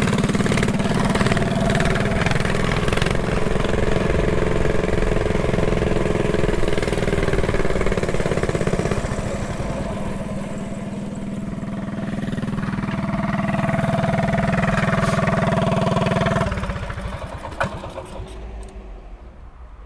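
Mini bike engine running under throttle while riding. It eases off about halfway through, picks up again, then drops away about three-quarters of the way in as the bike pulls up and stops.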